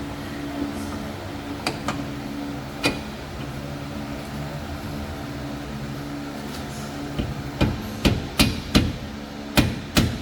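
A steel hammer striking a car's suspension parts. There are two single knocks in the first three seconds, then a quick run of blows at two to three a second from about seven seconds in, over a steady mechanical hum.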